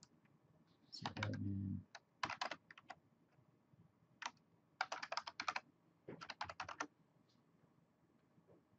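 Computer keyboard being typed on in several short bursts of keystrokes separated by pauses. A brief low hum runs under the first burst, about a second in.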